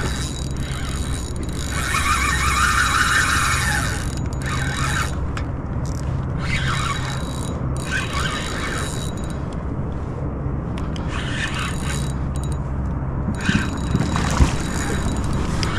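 Fishing reel's drag buzzing in spurts as a hooked striped bass pulls line off against the bent rod, with a splash near the end as the fish swirls at the surface.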